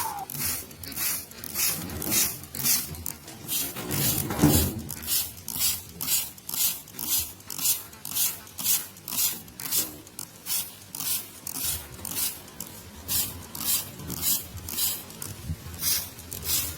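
Hand trigger spray bottle squirting water mist over caged birds, a quick, even run of short hissing squirts at about three a second.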